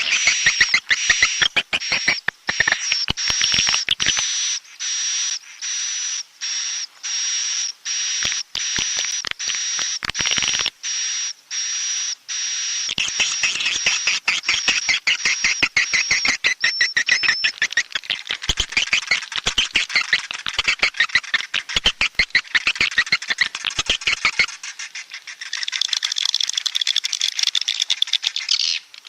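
Swiftlet calls: rapid trains of clicks and buzzy twittering over a thin, high steady note, the roosting call played to make swiftlets settle and stay the night. The high note fades out about halfway through and the twittering grows denser.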